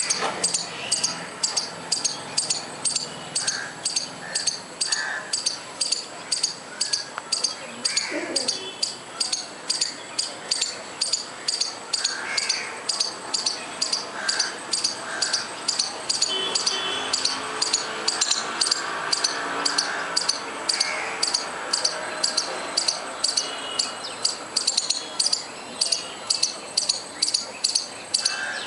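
Squirrel calling in a long, unbroken series of sharp, high-pitched chirps, about two to three a second.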